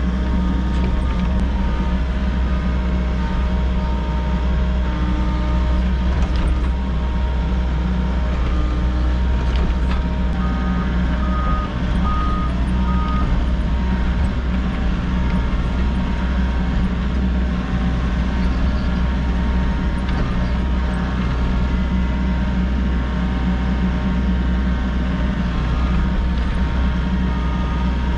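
Volvo EC60E excavator's diesel engine and hydraulics running steadily under digging load. About eleven seconds in, three short beeps sound.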